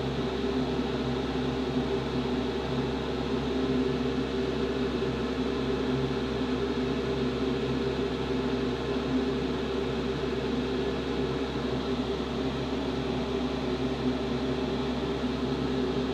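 A small electric motor running steadily: an even whir with several held tones that does not change.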